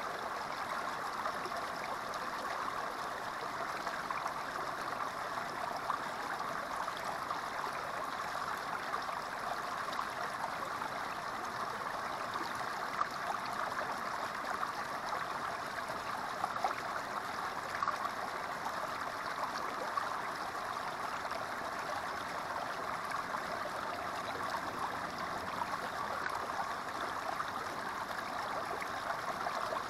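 Small creek spilling over a rock ledge into a pool: a steady, even babbling and splashing of running water.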